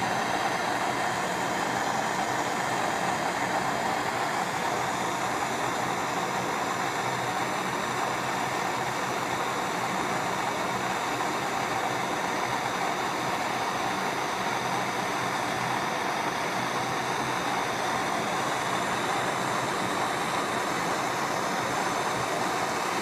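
Handheld propane torch burning with a steady hiss, its flame played on a steel Allen wrench to heat it.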